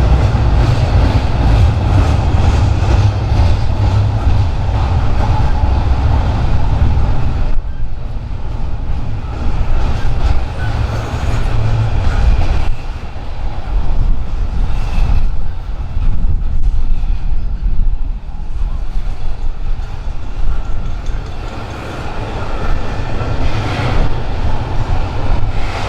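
A train passing close by on the tracks, a loud steady rumble that thins out about seven seconds in.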